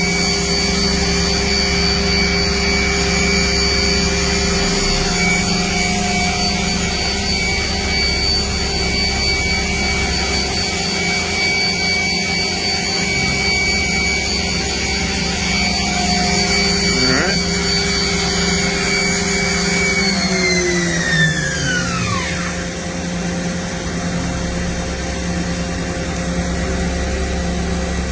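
Mazak VCN 410A vertical machining center's spindle running at speed with a steady whine, then winding down and stopping about 20 seconds in, its pitch falling fast. The machine's steady hum carries on underneath throughout.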